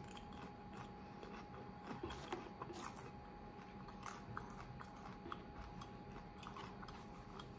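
Faint, irregular crunching and crackling of a mouth chewing dry SkinnyPop everything-bagel popcorn rice cakes close to the microphone, with a few sharper crunches around two to three seconds in and about four seconds in.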